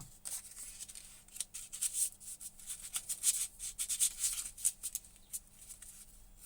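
Light, irregular scratching and ticking of an edge beveler being tried in the grooves of a sandpaper-covered sharpening jig.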